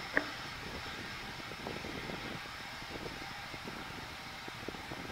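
Boeing 717's Rolls-Royce BR715 turbofan engines running at low thrust as the jet taxis: a steady whine over a faint rumble. A single short, sharp click just after the start.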